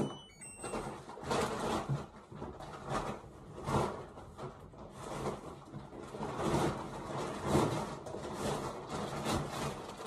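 Dry laundry being pulled out of a tumble dryer and handled: a sharp click at the start, then uneven rustling of fabric with soft bumps.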